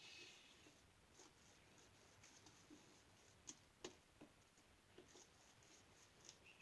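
Near silence: faint, scattered soft clicks and ticks, two slightly sharper ones a little past the middle.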